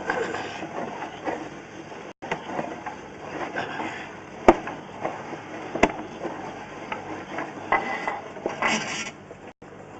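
Scattered knocks and clatter of equipment being handled, with two sharp clicks about halfway through.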